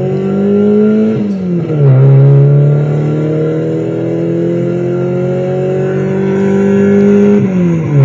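Car engine accelerating hard, its pitch climbing steadily and dropping sharply about a second in and again near the end as it changes up a gear.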